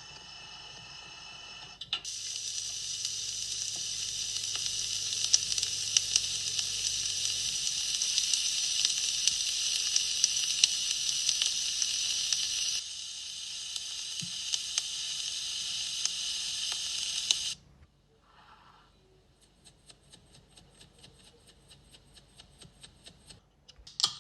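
Food sizzling in a hot pan, a dense hiss full of small crackling pops: it grows loud after a couple of seconds, drops somewhat about halfway through and cuts off suddenly about two-thirds of the way in. Faint regular ticking follows near the end.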